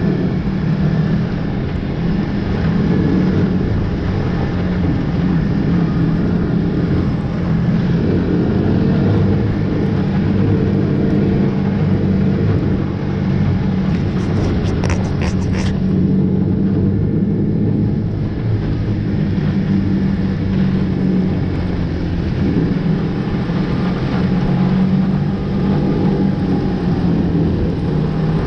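Snowmobile engine running steadily under way, heard close up from the machine the camera rides on. A brief cluster of clicks comes about halfway through.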